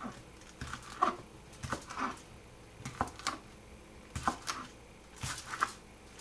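Chef's knife slicing a sausage into rounds on a cutting board, each cut ending in a sharp knock of the blade on the board, about a dozen at an uneven pace of one or two a second.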